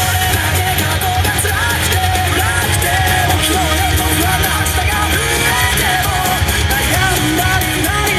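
Loud dance music played over a PA, a sung or synth melody over a heavy steady beat, with shouts over the music.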